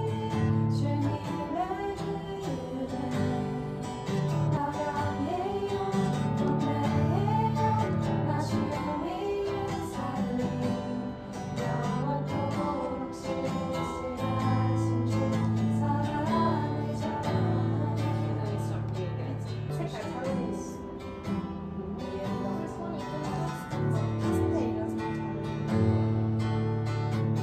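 Acoustic guitar strummed while women sing a Korean worship song together.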